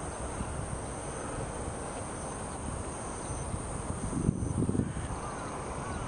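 Outdoor field ambience: a steady low rumble, swelling briefly about four seconds in, under a faint steady high whine, with a few faint chirps near the end.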